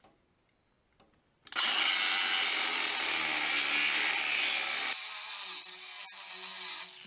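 DeWalt angle grinder grinding the steel tractor frame at a welded splice, starting about a second and a half in. Its sound changes about five seconds in, and it stops near the end.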